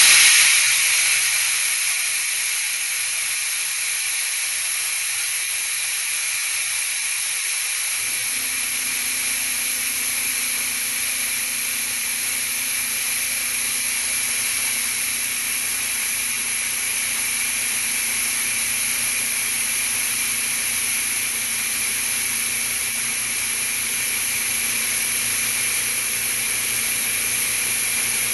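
Air blowgun held open, a steady hiss of compressed air from the compressor's tank. About eight seconds in, the GMC Syclone 6310 oil-free compressor kicks on and adds a low, steady motor hum under the hiss as it works to keep up with the air draw.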